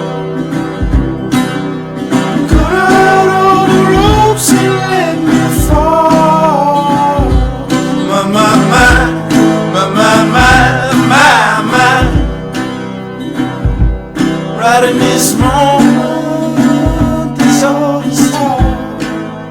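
Song with strummed acoustic guitar and singing, over a low thump on each beat.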